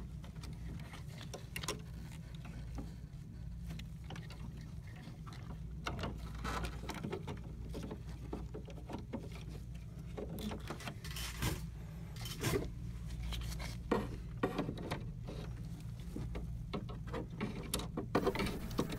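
Gloved hands handling plastic inkjet printhead parts and ink tubes: scattered small clicks and rustles over a low steady hum, with a few sharper clicks about two thirds of the way through.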